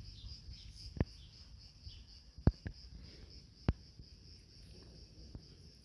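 Crickets chirring steadily in a high, even pulse, with four sharp clicks or knocks: one about a second in, two close together in the middle, and one more a second later.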